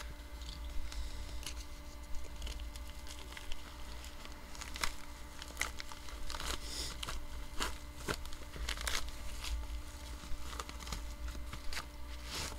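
Yellow padded mailer envelope being torn open by hand: the envelope crinkles and rustles, with short tearing rips at irregular intervals.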